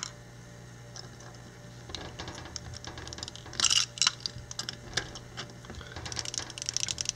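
Utility knife blade scraping and clicking against the hard plastic ball of a Guinness can widget, in short irregular scratches with a louder scrape a bit over three and a half seconds in. The blade is not getting through: the plastic is too tough for this knife.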